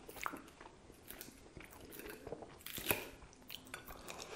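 Close-miked crunchy chewing of an iceberg lettuce salad, with small crackles throughout. A metal fork scrapes and clicks against the plate, the sharpest click a little before three seconds in.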